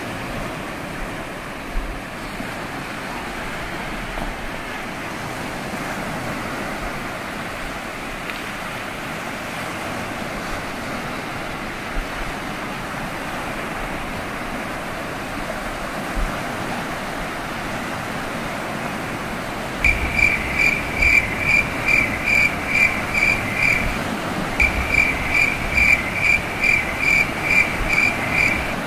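Small lake waves breaking and washing on a sandy shore, a steady hiss with wind. About two-thirds of the way in, a loud high-pitched chirp starts repeating two or three times a second in runs with short breaks.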